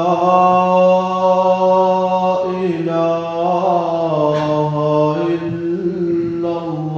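A man's unaccompanied voice giving the adhan, the Islamic call to prayer, in long drawn-out phrases. He holds each note steady, turns through a wavering ornament about halfway, and takes short breaths between phrases.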